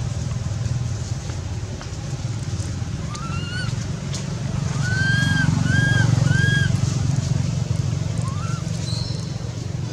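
A steady low motor-like drone runs underneath short, high, squeaky arched calls: one a few seconds in, three in quick succession around the middle, and one more near the end.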